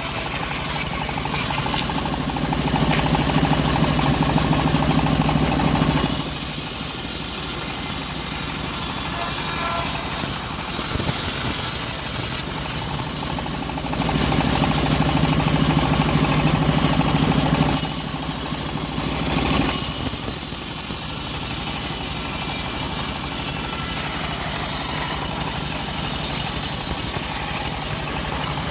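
The engine of a homemade bandsaw mill runs steadily while the blade cuts a teak log. Its note swells louder twice, a few seconds in and again about halfway through.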